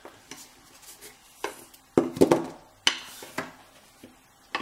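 Sharp knocks and clicks of a disassembled euro lock cylinder's metal housing and plug being handled and set against a wooden pin tray, busiest about two to three and a half seconds in.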